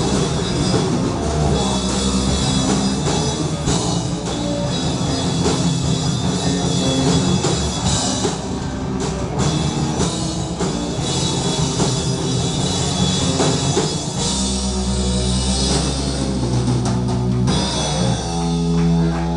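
Rock band playing live and loud: electric guitars, bass and drum kit. About two-thirds of the way through, the band switches to long held chords that ring out, and these break off near the end.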